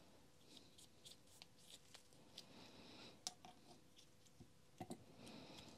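Near silence broken by faint, scattered clicks and rustles of gloved hands fitting a greased gear onto its shaft in the aluminium gearbox housing of a Makita HR5001C rotary hammer, with a sharper click a little past halfway and two more near the end.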